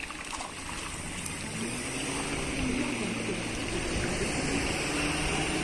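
Steady splashing and sloshing of water in an earthen fish pond, stirred by workers wading with a harvest net and by pangasius catfish in the water.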